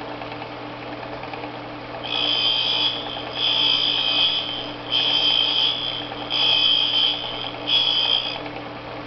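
Surface grinder running with a steady motor hum while a dressing tool is passed across the grinding wheel five times, each pass a high-pitched hiss lasting about a second, cutting an angle into the wheel's edge.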